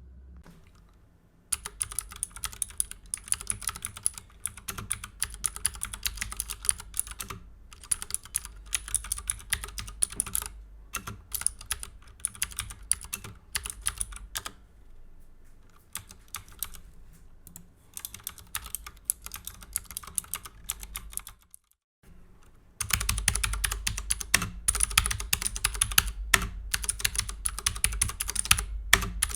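Typing on a Leopold FC750R BT mechanical keyboard with clicky Cherry MX Blue switches: a quick, uneven run of key clicks, typed lightly. After a brief pause about three quarters of the way through, the typing turns harder and louder.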